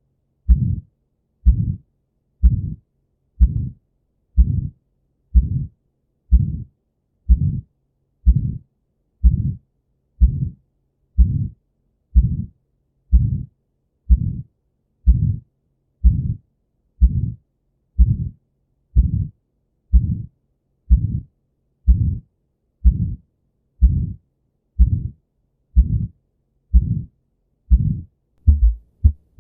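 Abnormal heartbeat heard through a stethoscope, with a murmur: a steady beat about once a second, each beat a drawn-out low sound rather than a crisp thump. About 28 s in, the beat changes to a faster, uneven pattern.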